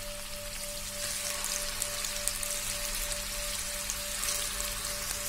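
Chicken keema balls shallow-frying in hot oil in a frying pan: a steady sizzle full of fine crackles, growing louder about a second in.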